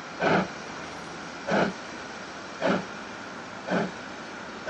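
Steam locomotive 41241, an Ivatt 2-6-2 tank engine, working a train at slow speed. Four loud exhaust chuffs come about a second apart and quicken slightly as it gets going, with a steady hiss between them.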